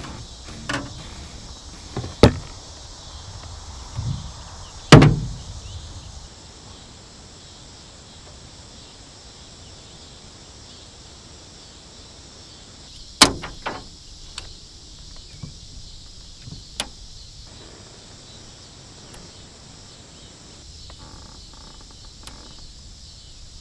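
Scattered sharp knocks and thuds of a landed fish and tackle against a small jon boat while the fish is unhooked, the loudest a heavy thud about five seconds in. Under them, a steady high chorus of insects.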